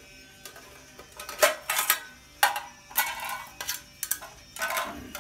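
Military surplus mess kit being handled: its metal skillet and two-section plate clink and clatter against each other in a run of sharp knocks, some ringing briefly.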